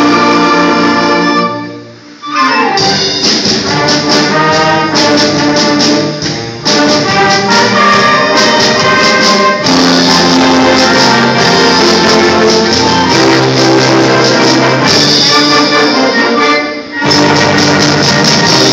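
Concert band of woodwinds and brass playing. A held chord breaks off about two seconds in, then the music comes back in a brisk rhythmic passage, with another short break near the end.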